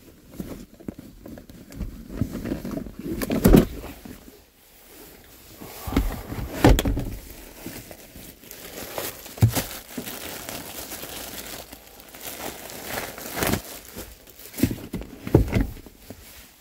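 A cloth and gloved hands rubbing and wiping a black leatherette vehicle seat, with several sharp knocks and thumps as the seat and its fittings are handled.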